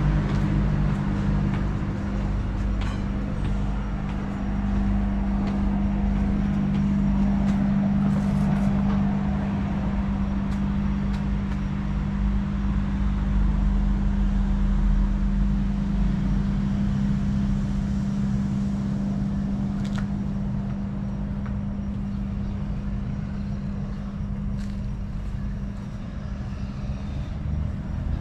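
Steady low engine hum over a road-traffic rumble, with a few faint clicks.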